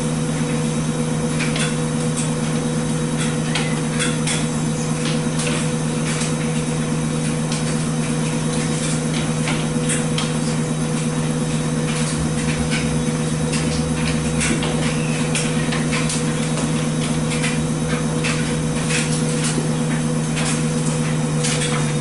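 Speed Queen front-loading washer spinning its drum at a steady speed near the end of the cycle, with an even motor hum made of a few fixed low tones. Light clicks and knocks come at irregular intervals over the hum.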